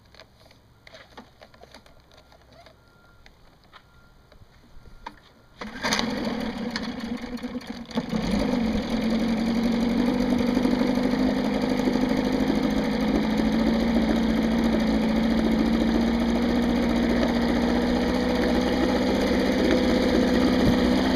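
Small two-stroke outboard motor starting: a few faint clicks of handling the controls, then the engine catches about six seconds in, runs raggedly for a couple of seconds and settles into a steady idle.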